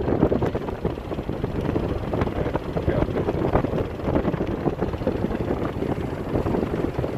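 Wind buffeting the microphone on an open powered-parachute trike in flight, as it glides down during engine-out practice.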